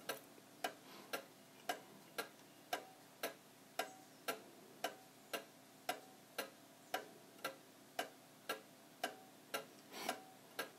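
Early-1900s Ansonia wall clock's freshly serviced single-train timepiece movement ticking steadily, about two ticks a second, each tick ringing briefly: the clock is running after its overhaul.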